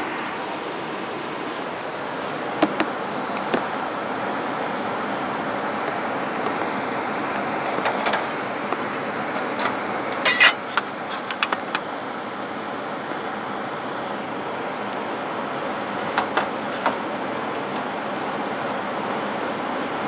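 Steady rushing air from a ventilated stainless-steel lab hood's blower, with scattered clicks and knocks from handling the camera, the loudest a cluster about ten seconds in.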